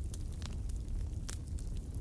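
Wood fire burning in a fireplace: a steady low rumble of flames under irregular sharp crackles and pops, the two loudest about half a second and a second and a quarter in.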